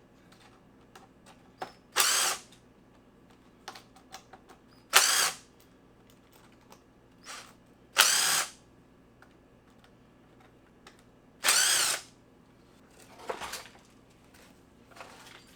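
Hitachi cordless driver running in reverse in short spurts, about half a second each, backing out T20 star screws. There are four loud spurts about three seconds apart and a fainter one near the end, with small clicks of handling between them.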